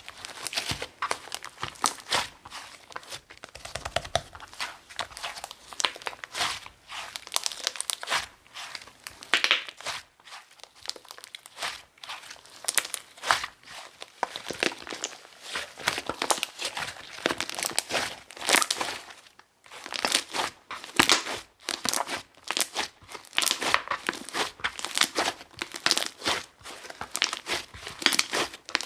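Sherbet slime being squeezed, pressed and stretched by hand, giving dense crackling and popping in repeated bursts, with a couple of short pauses.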